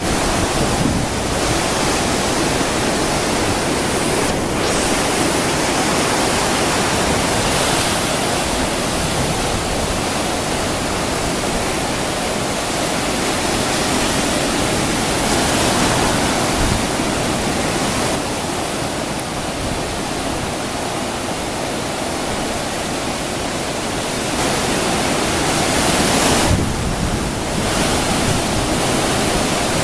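Sea surf breaking on the shore, a steady, loud wash of noise that swells a little about halfway through and again near the end.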